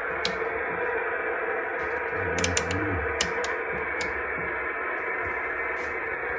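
CB radio static hissing steadily from the speaker, cut off above the radio's narrow audio band, with a few sharp clicks in the middle.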